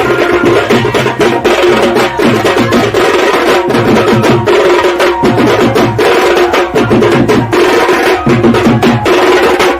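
Loud music with a steady, driving beat of drums and sharp wood-block-like percussion.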